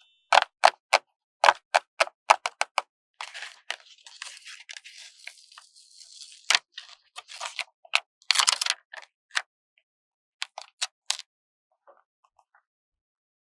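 A paper sticker being peeled off its backing sheet: a quick run of sharp crackles, a soft tearing hiss from about three to six seconds in, then another cluster of crackles and a few faint clicks.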